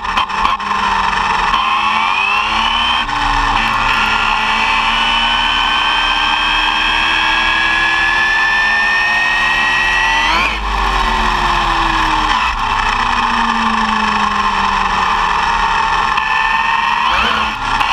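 Arrma Typhon 6S RC buggy's brushless electric motor and gear drive whining at speed, heard from on board the car over a steady rush of road noise. The whine climbs slowly in pitch as the car speeds up, changes abruptly about ten seconds in and sinks, then climbs again near the end.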